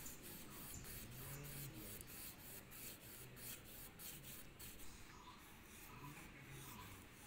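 Pastel crayon rubbing on paper, faint, in quick repeated strokes at about three a second as an area is coloured in.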